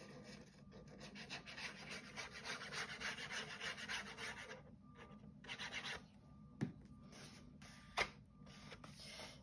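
Faint scratching of a fine-tipped glue bottle drawn along the edge of a sheet of cardstock as a line of glue is laid, for about four seconds. Then paper is handled, with two short taps.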